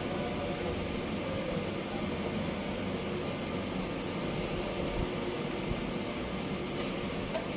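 Steady fan and air-movement hum with a few faint steady tones.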